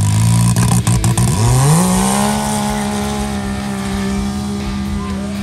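Side-by-side UTV engines launching from a standing start: the pitch climbs sharply about a second and a half in, then holds steady at high revs as the machines accelerate away.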